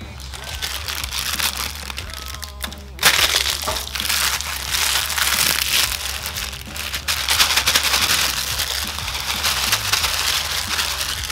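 Plastic instant-noodle packet crinkling and crackling as it is handled and crushed, louder from about three seconds in.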